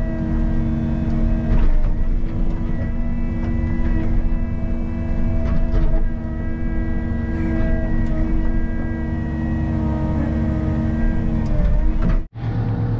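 Excavator's diesel engine and hydraulics running steadily under load, heard from inside the cab, with a steady whine and a few brief knocks as the bucket digs into rocky, hard-packed dirt. The sound breaks off for an instant near the end.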